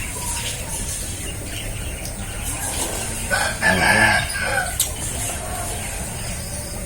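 A rooster crowing once, a call of about a second and a half starting about three seconds in, over steady outdoor background noise.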